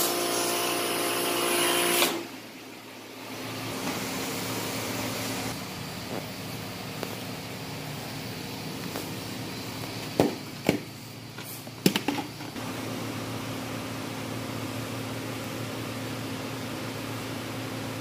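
Pressure washer with a foam cannon spraying soap onto a car: a steady motor hum with hissing spray that cuts off about two seconds in. A lower steady hum and hiss follow, with a few sharp clicks between about ten and twelve seconds in.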